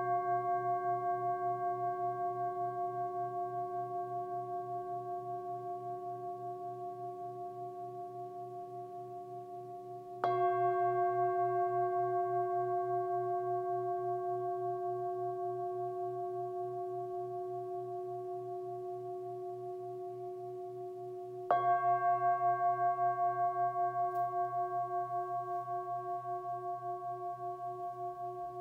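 A singing bowl struck with a mallet twice, about 10 and 21 seconds in, each time with the same set of tones. Each strike rings on with a steady, wavering tone that slowly fades, and the ringing from a strike just before fills the opening seconds.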